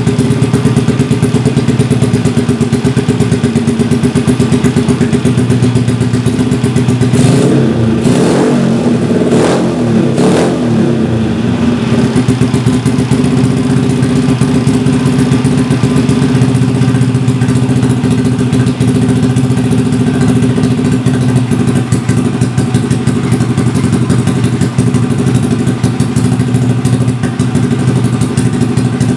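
Honda Supra motorcycle's single-cylinder four-stroke engine running at idle through a DOS jigsaw racing silencer. A few quick throttle blips come about seven to eleven seconds in, then it settles back to a steady idle.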